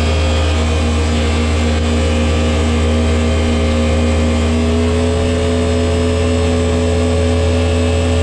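Jet boat engine running steadily with a deep hum, its pitch stepping up slightly about five seconds in.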